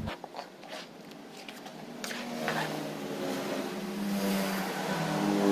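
A few light scrapes and taps of a spatula stirring spice paste in the pan. Then, from about two seconds in, a steady engine hum from a motor vehicle grows louder.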